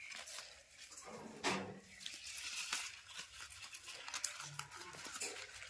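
Clear plastic wrapping crinkling and rustling under the hands as a sapling is packed, with scattered small clicks and a louder rustle about one and a half seconds in.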